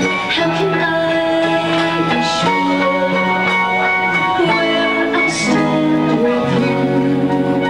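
Live band music: a woman singing into a microphone over held chords that change every second or two, with bass guitar and drums, one cymbal crash about five seconds in.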